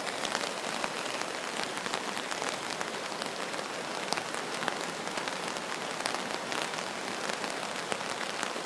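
Heavy rain falling steadily, with many sharp individual drop hits close by.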